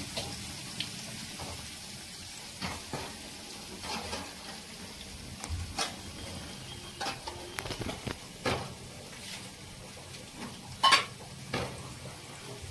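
Fritters sizzling as they deep-fry in hot oil in a small kadhai, with scattered clinks and scrapes of a metal perforated skimmer against the pan as they are turned. The loudest clank comes about 11 seconds in.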